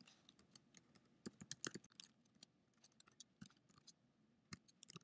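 Faint computer keyboard typing: irregular clicks of keys being pressed.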